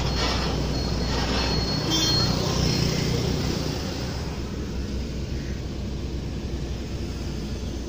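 Diesel engine of a Cummins-powered Tata Prima tractor-trailer rumbling in busy road traffic. The rumble is strongest for the first three or four seconds, then eases as the truck draws away.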